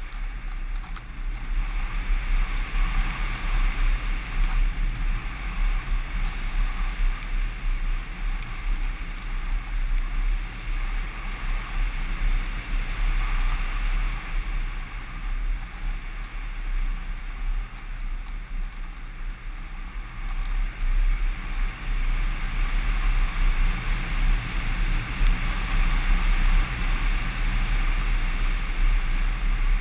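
Wind rushing over the onboard camera of a Kyosho Stratus 2000 RC motor glider gliding with its electric motor off and the folding propeller folded back: a steady airflow noise that swells and eases a little, with no motor sound.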